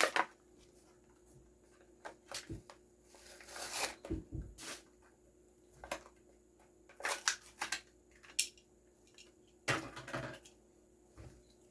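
Die-cast toy car's plastic blister pack and cardboard card being handled and pried open: irregular rustles, crinkles and clicks.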